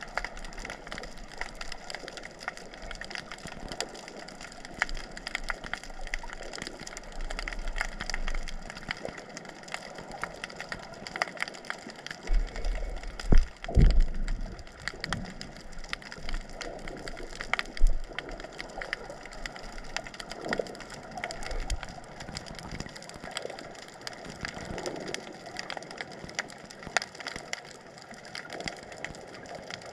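Underwater ambience picked up by a submerged camera: a dense, steady crackle of tiny clicks, with a cluster of low thuds a little before the middle and one more a few seconds later.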